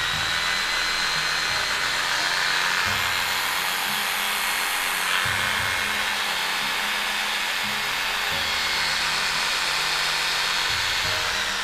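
Small mini jigsaw's electric motor (100 V, 180 W) running free at speed with a steady high whine, running smoothly; near the end it is switched off and the whine slides down as it winds down.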